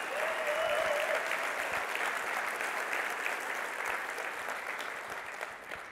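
Audience applauding: a steady round of clapping that slowly fades toward the end.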